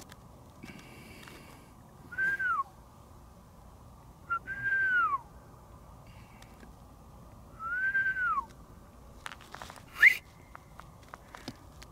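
Three drawn-out whistles a few seconds apart, each rising and then falling in pitch. About ten seconds in comes a short, sharp upward whistle together with a loud click.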